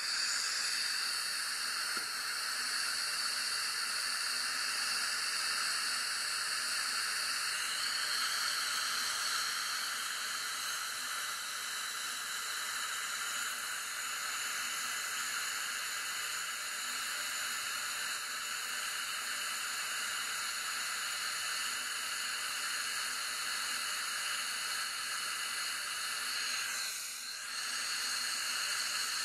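Dental saliva ejector drawing air and saliva with a steady hiss, which dips briefly near the end.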